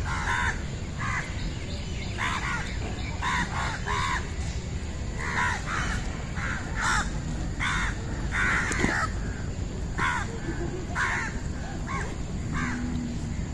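Crows cawing over and over, many short calls in quick runs, over a steady low outdoor rumble.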